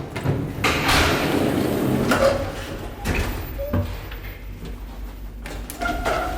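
Elevator doors sliding, a rushing noise lasting a couple of seconds, followed by a few separate knocks and thuds.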